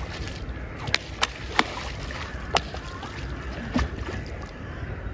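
Seals slapping their flippers on the water and against their bodies: about five sharp slaps at uneven intervals over splashing water.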